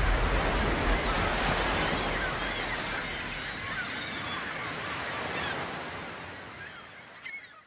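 Ocean surf breaking and washing on a beach, fading out steadily to near silence, with a few short high chirps over it.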